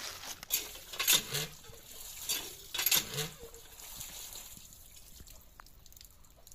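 Water from a hand pump splashing onto fish pieces in a plastic colander as they are rinsed, with two louder splashes about a second and about three seconds in, then a thinner trickle that fades.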